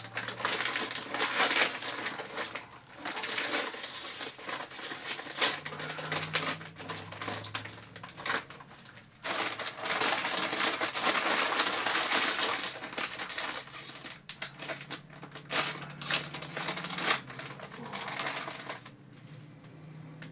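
Potato chip bags being handled and opened: a long run of crinkling, crackling plastic, with a short break about nine seconds in.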